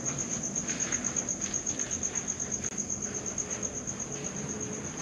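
A cricket trilling steadily, one high note pulsed rapidly about ten times a second, with faint scuffing footsteps underneath.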